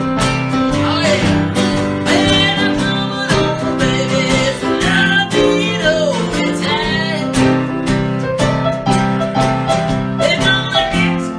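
Acoustic guitar and piano playing an upbeat blues number, with steady rhythmic strumming.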